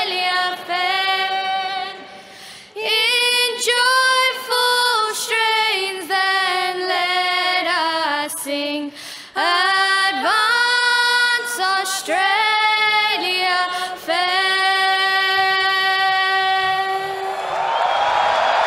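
A national anthem sung unaccompanied by a small group of young female voices, phrase by phrase, ending on a long held note. Applause from a large crowd swells in near the end.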